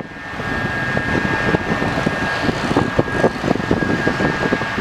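Heavy track-work machinery running steadily, with a thin, high, steady whine and faint clicks and knocks.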